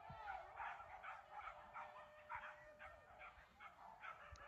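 Faint, distant yelping of hunting dogs on a boar hunt: short yips repeating two or three times a second, with a thin steady tone underneath for the first few seconds.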